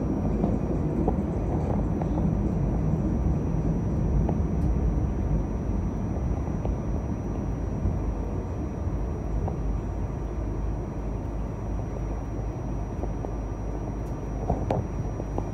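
Cleveland RTA Green Line light-rail car running along the track, a steady rumble of wheels and running gear heard from inside the car, slowly getting quieter, with a couple of short clicks near the end.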